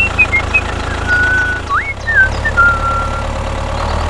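Tractor engine running steadily with a low pulsing rumble. A few short high whistling chirps sound over it in the first three seconds.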